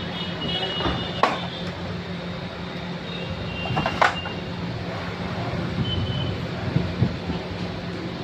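Sharp plastic clicks and knocks from hands handling an opened inkjet printer, the loudest about four seconds in, over a steady low hum.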